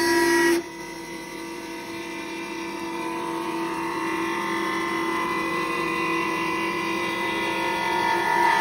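CNC woodworking machine's spindle running with a steady whine while its cutter shapes the edge of a wooden workpiece. The sound drops sharply about half a second in, then slowly grows louder again.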